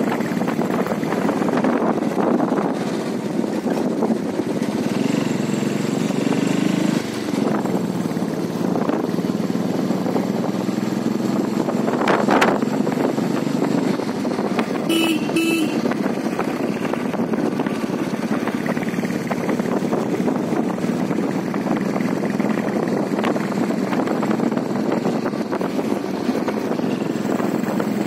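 Steady engine and road noise of a vehicle driving along a mountain road, with a short vehicle horn toot, broken once, about halfway through.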